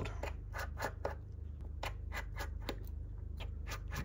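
Precision crosshead screwdriver turning out tiny screws from a smartphone's loudspeaker and subboard cover: a run of small, sharp clicks, irregular at about three a second, over a steady low hum.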